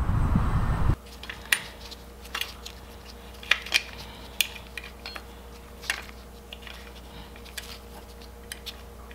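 Scattered small metallic clicks and clinks of metal ignition parts being handled by gloved hands on a vintage Honda twin's engine, over a faint steady hum. The first second is a louder outdoor rumble that cuts off abruptly.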